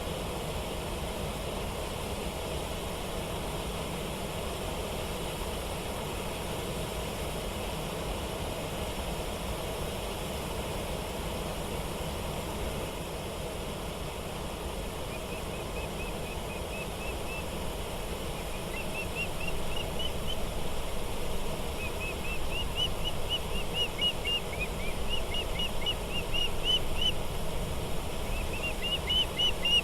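Steady rush of flowing water, with a small bird calling over it from about halfway through in quick series of short rising chirps that grow louder toward the end.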